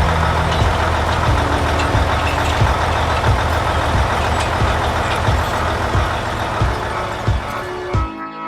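Heavy farm-vehicle engine running steadily with a low rumble and scattered knocks, cutting out about eight seconds in to leave only background music.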